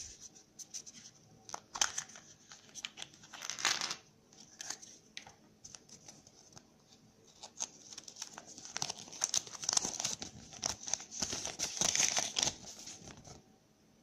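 Kinder Surprise egg's foil wrapping being torn and crinkled open, in two spells of crackling rustle, a short one near the start and a longer one that stops shortly before the end.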